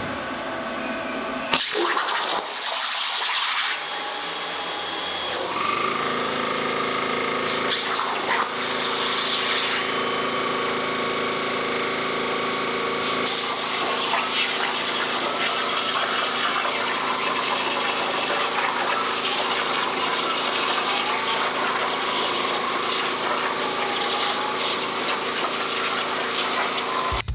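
Unimig Razor Cut 45 air plasma cutter on a CNC table firing its arc about one and a half seconds in and cutting 1.6 mm mild steel sheet: a loud, steady hiss with a faint wavering whine underneath, broken off briefly a couple of times.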